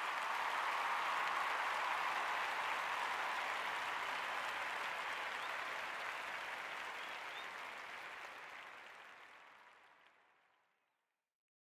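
A crowd applauding, a dense steady clapping that slowly weakens and fades out to silence near the end.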